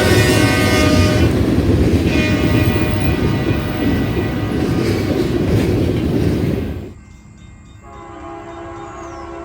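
Nathan K3LA/K3HA three-chime locomotive air horn blowing over the loud rumble of a passing train. The horn stops about a second in, sounds again more weakly for a second or so, and the train noise carries on. Near seven seconds the sound cuts to a quieter scene where another K3LA-type horn starts blowing at about eight seconds.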